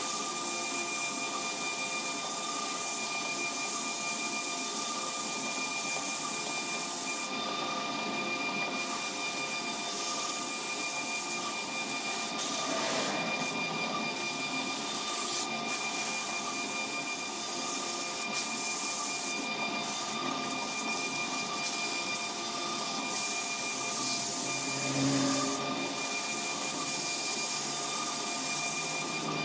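Sandpaper pressed by hand against a large wooden table leg spinning on a wood lathe: a steady rubbing hiss over the lathe's even whine. The hiss briefly drops away a few times.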